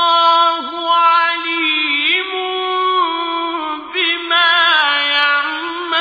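A single voice chanting Quranic recitation in Arabic, drawing out long melodic notes with quick ornamented turns.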